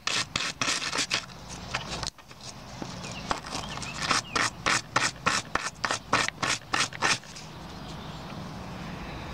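Small steel wire brush scrubbing the threads of a reused oil pan bolt in quick back-and-forth strokes, about three a second, clearing out old RTV silicone sealer. There is a short break about two seconds in, and the strokes stop about two seconds before the end.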